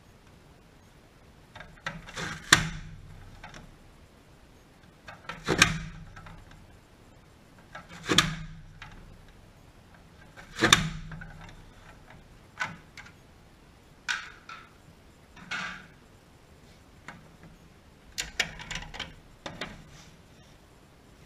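Vidalia Chop Wizard hand chopper mincing onion: four sharp clacking strokes about two and a half seconds apart as the lid is pressed down through the blade grid, then several lighter clicks and knocks of plastic being handled.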